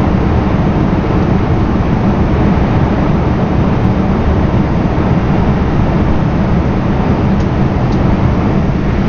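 DB ICE 3 high-speed electric train running through a tunnel, heard from inside the driver's cab: a loud, steady rumble of wheels and rushing air, heaviest in the low bass.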